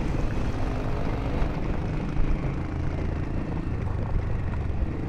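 Single-cylinder dual-sport motorcycle engine running steadily while riding along a gravel track.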